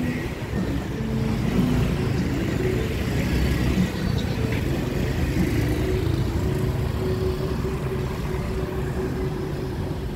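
Motor vehicle traffic on a narrow street: an engine running close by with a steady low rumble that does not let up.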